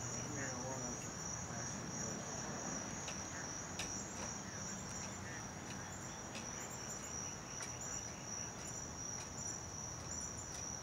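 Insects trilling in a steady, unbroken high-pitched chorus, with a few faint ticks.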